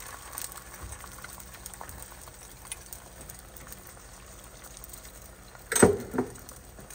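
Beaten eggs frying in a preheated pan, a steady soft sizzle with small pops. Near the end come two sharp knocks, the first much louder.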